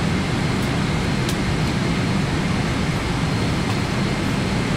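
Steady cabin noise inside a Boeing 777-300ER on the ground: a low, even rumble with air hiss and faint steady high tones.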